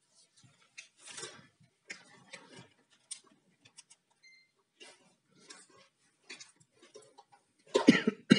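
Small clicks and rustles of a cut USB cable's leads, a power bank and multimeter probes being handled and connected, with a louder knock near the end.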